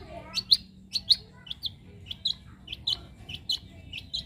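Young long-tailed shrike (cendet) calling: short, sharp, high notes repeated about twice a second, often in quick pairs.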